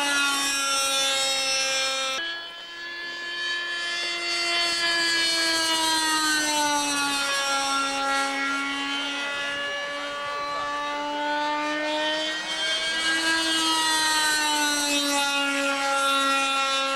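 Radio-controlled model jet flying overhead: its engine gives a steady pitched drone whose pitch sinks and rises again as the model passes and turns.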